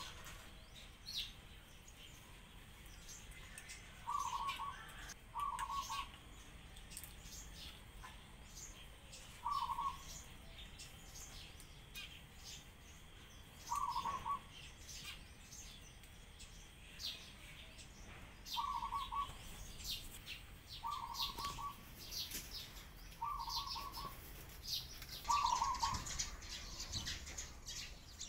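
Doves calling with short, repeated notes of steady pitch, eight times a few seconds apart, over a steady scatter of high sparrow chirps.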